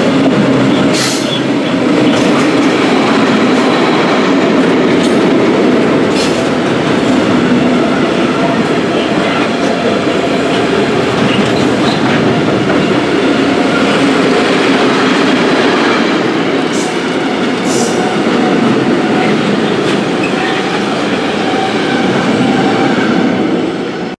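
Freight train of loaded tank wagons rolling past close by: a steady, loud rumble of wheels on the rails, broken by a few sharp clicks at irregular intervals. The sound cuts off abruptly at the end.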